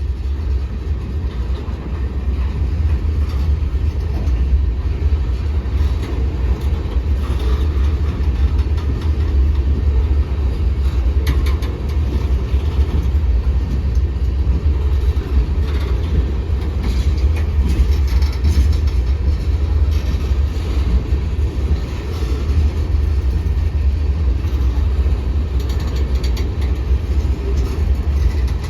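Freight cars of a long mixed freight train rolling past: a steady low rumble of steel wheels on rail, with a few scattered sharp clacks.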